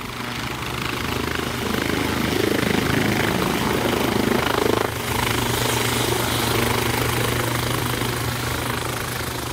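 UH-60 Black Hawk helicopter landing, its rotor and twin turboshaft engines running: the noise grows louder over the first few seconds as it descends, then holds steady as it settles onto its wheels, easing a little near the end.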